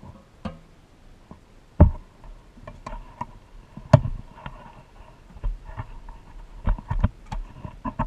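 Screwdriver and pressed-steel parts of a vintage Tonka toy truck being worked and handled: irregular small metallic clicks and taps, with two louder knocks about two and four seconds in.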